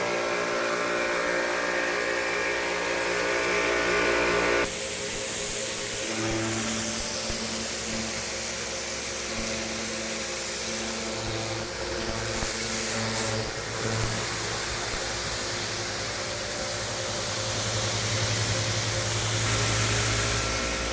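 Kärcher pressure washer running, its motor humming steadily, with the hiss of the water jet on deck boards. About five seconds in, the sound changes abruptly and the spray hiss becomes much louder.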